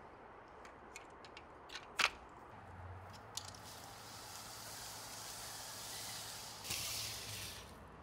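Plastic clicks from a folding rotary clothes dryer's hub and arms as it is collapsed, with one sharp snap about two seconds in. Then a few seconds of fabric rustling as the storage cover is pulled down over the folded dryer, louder near the end.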